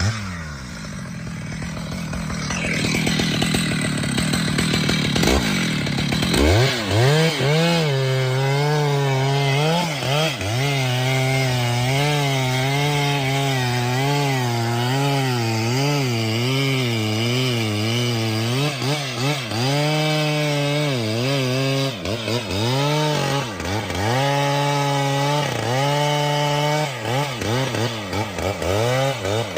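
Two-stroke chainsaw running at high revs and cutting wood, its pitch wavering as the cut loads it. In the second half it drops back briefly several times.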